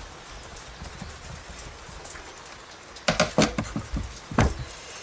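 A quick run of sharp metal knocks and clicks about three seconds in, then a single louder knock a moment later: a motorcycle generator cover and tools being handled on a workbench.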